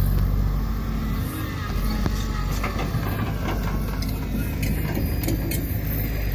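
Excavator engine running steadily with a low rumble, with scattered clicks and knocks.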